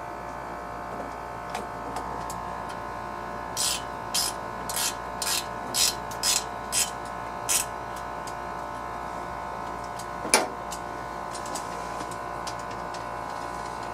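Ratchet wrench worked in short strokes, about eight quick ratcheting bursts over four seconds, running down the carburetor mounting nuts on a Tecumseh small engine. A single sharp metallic click follows later.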